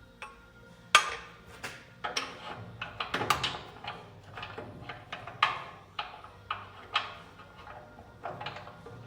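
Irregular metal clanks and clinks, about a dozen, with a cluster of quick hits about three seconds in, several leaving a short ring: steel parts and tools knocking together while a U-bolt is worked into place.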